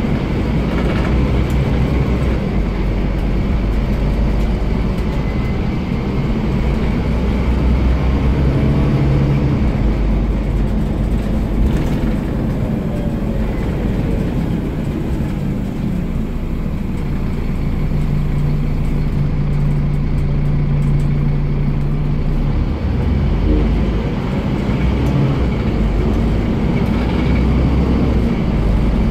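Scania CN230UB bus's 9-litre five-cylinder diesel engine heard from inside the rear of the saloon, pulling the bus along, its note rising and falling with speed and gear changes. Its pitch holds steady for a few seconds past the middle, then drops and picks up again.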